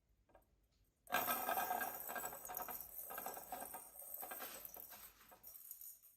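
A rustling, scratching noise that starts abruptly about a second in and runs for about four seconds, loudest at its onset.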